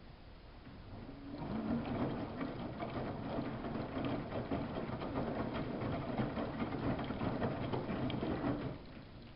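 Samsung WF71284 front-loading washing machine turning its drum in the wash cycle: a motor hum with wet laundry and water splashing, starting about a second in and stopping shortly before the end.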